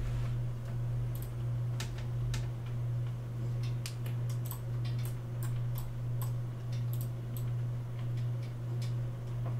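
Irregular light clicks of a computer mouse as a CAD model is turned on screen, over a steady low hum that swells and fades about once a second.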